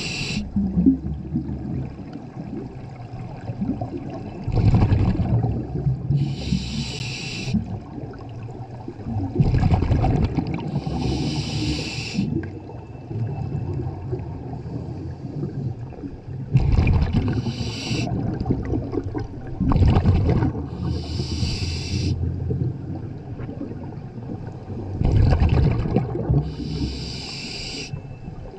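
A scuba diver breathing through a regulator underwater: a hiss on each inhale through the demand valve, then a low, gurgling rumble of exhaled bubbles, repeating about every five seconds.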